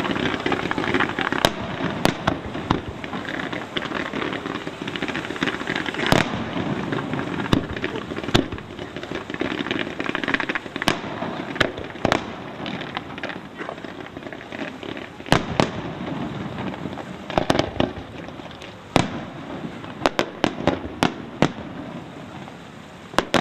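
Pains Fireworks display shells bursting overhead with sharp bangs at irregular intervals, including a cluster of quick bangs about twenty seconds in, over a continuous rushing noise that thins toward the end.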